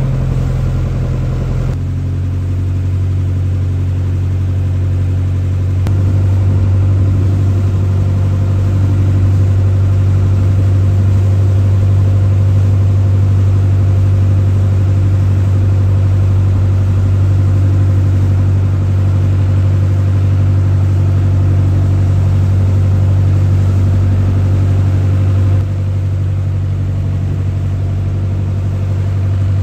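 A river boat's engine running steadily: a loud, low drone heard from on board, shifting slightly in pitch and level a few times.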